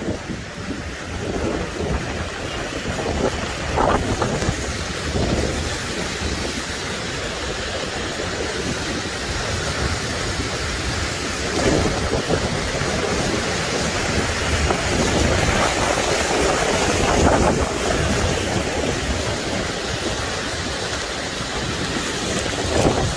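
Heavy rain and strong wind of a tropical cyclone making landfall, a steady dense rush of noise.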